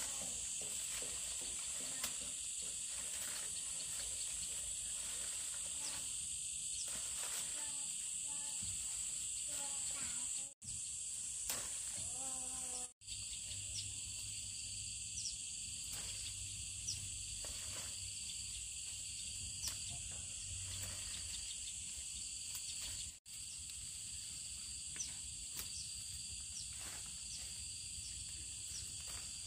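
Steady, high-pitched chorus of insects, with faint distant voices and small knocks under it; the sound cuts out briefly three times.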